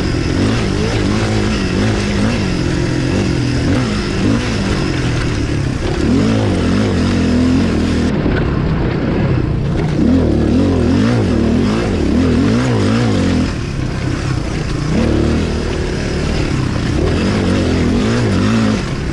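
1996 Suzuki DR350SE's single-cylinder four-stroke engine under way on a dirt trail, heard close from the bike, its revs rising and falling over and over as the throttle is worked, with a steady rush of wind and riding noise behind it.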